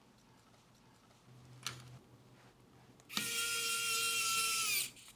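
Small electric precision screwdriver's motor whining for about two seconds as it drives a screw into the radio's case, dipping slightly in pitch just before it stops. A single click comes a little earlier.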